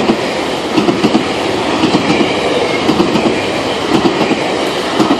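GO Transit express commuter train passing at speed close by: a steady loud rumble of the coaches, with wheels clacking over the rail joints.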